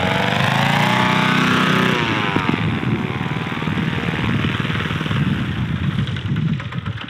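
Predator 212 single-cylinder four-stroke engine of a DIY paramotor, driving a 36x12 propeller. Its pitch rises over the first two seconds, then drops sharply as it is throttled back, and it runs on low and uneven before fading near the end.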